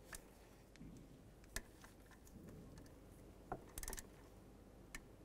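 Faint clicks from a torque wrench working an ignition coil mounting bolt as it is tightened to 40 inch-pounds, with a short run of quick ratcheting clicks about three and a half seconds in, over near silence.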